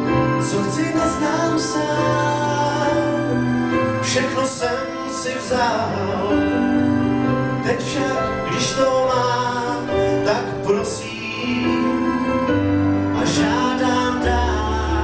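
Man singing a pop song live into a handheld microphone over a backing track, with long held notes.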